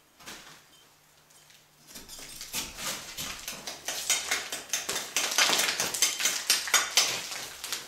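A crumbly pumice block grating and scraping against the wall opening as it is worked loose and pulled out, with bits of crumbling filler crackling and falling. The scraping starts about two seconds in and grows louder.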